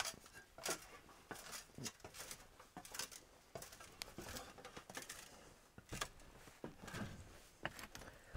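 Quiet, irregular knocks and rustles of someone climbing an aluminium ladder onto a tiled roof: feet and hands on the rungs, with clothing rustling.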